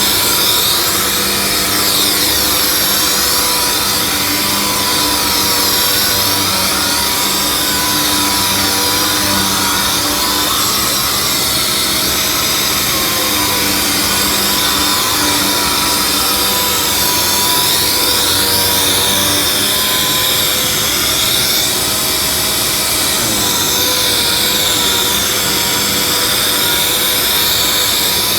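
Robotic sander with a square pad running steadily as it sands walnut veneer and edge tape, a continuous power-tool noise whose pitch wavers slightly as it moves over the panel.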